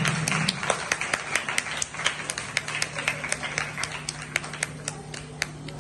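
Scattered audience applause, hand claps coming irregularly several times a second and thinning out toward the end.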